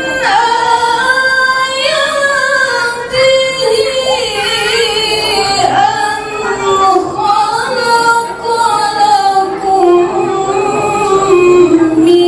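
A solo female voice singing long, wavering held notes with slow melodic runs.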